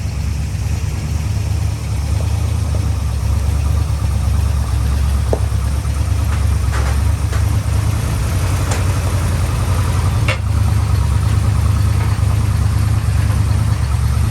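International Scout II's carbureted engine running steadily on its newly fitted carburetor, with a few faint ticks over it.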